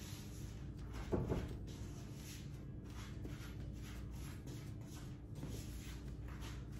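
Silicone spatula stirring and scraping a dry mix of brown sugar, flour, cinnamon and chopped pecans in a bowl: faint scraping and tapping over a steady low hum, with one louder brief sound about a second in.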